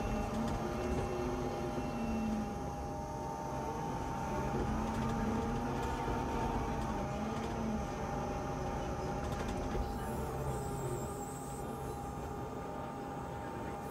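Kubota skid steer's diesel engine running under load, its pitch rising and falling slowly as it works, with a steady whine above it.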